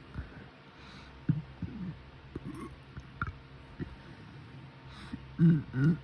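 A girl's quiet, short, low burps and mouth clicks, then near the end two louder closed-mouth 'mm' hums.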